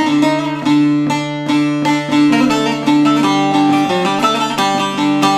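Bağlama (long-necked Turkish saz) played solo: quick picked melody notes over a steady low drone string, an instrumental passage of a Turkish folk song.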